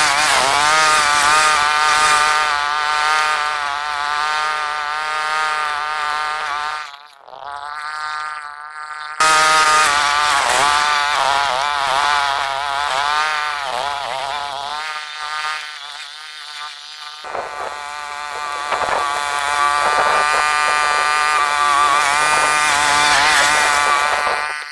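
Small petrol mower engine running, its pitch wavering up and down as the load changes while it cuts weeds. It fades out about seven seconds in and comes back abruptly about two seconds later.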